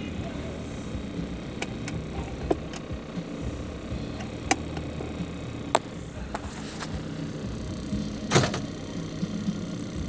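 Car cabin sound: a low steady rumble with several sharp clicks, and a louder knock about eight seconds in.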